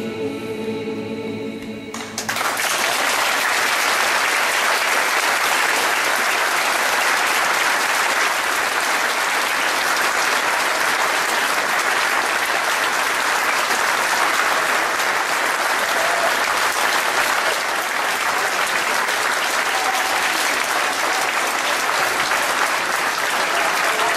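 A mixed folk choir's final held chord ends about two seconds in, and a concert audience breaks into steady applause.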